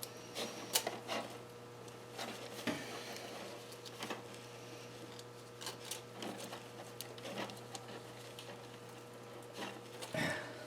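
Sparse light metallic clicks and scrapes as a piston compression ring is set into a cylinder bore and pushed down with a piston to square it for an end-gap check.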